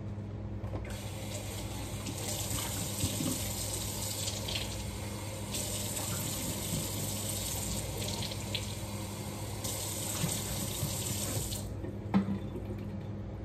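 Water running steadily, like a tap into a sink, starting about a second in and cutting off near the end, with a knock shortly after it stops. A low steady hum sits underneath throughout.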